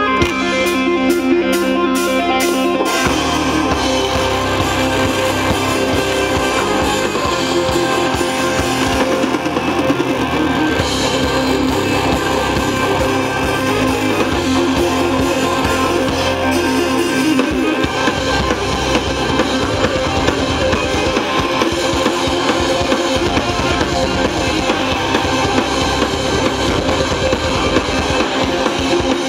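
Live rock band playing through amplifiers: electric guitar alone at first, then the drum kit and the rest of the band come in about three seconds in and play on steadily.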